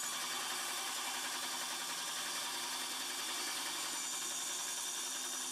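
Small CNC milling machine running steadily: an even, high-reaching hiss with a faint steady hum under it.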